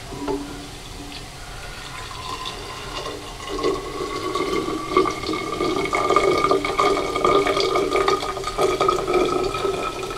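Warm honey liqueur poured from a stainless steel pot into a glass bottle: a splashing stream of liquid, louder from about four seconds in, with a tone that rises slowly in pitch as the bottle fills.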